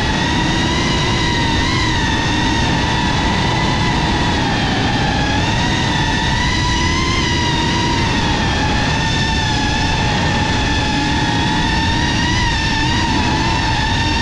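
FPV quadcopter's brushless motors spinning with a steady whine whose pitch wavers slightly.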